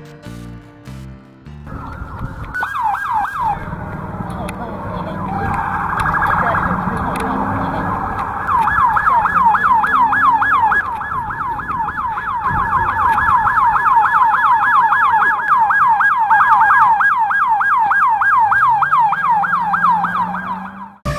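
Emergency-vehicle siren: a few slow wailing sweeps, then a fast yelp of about three rising-and-falling sweeps a second, which cuts off suddenly just before the end.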